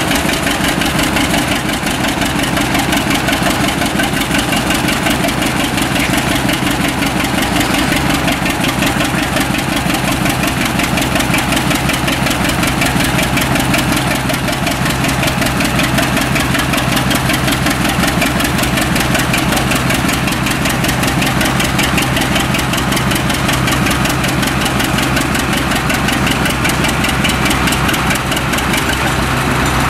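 Two-cylinder engine of an antique John Deere tractor running steadily under load as it pulls a weight-transfer sled, its exhaust beats coming in an even, rapid rhythm.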